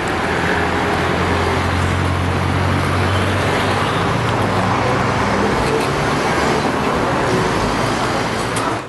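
Street traffic: a motor vehicle's engine hum close by over the steady noise of passing cars, the hum strongest in the first few seconds. The sound fades out right at the end.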